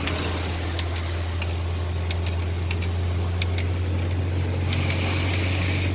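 Vehicle engine and road noise heard from inside the cab while driving on a road coated with hail ice and meltwater: a steady low drone with scattered light ticks, and a rush of hiss starting near the end.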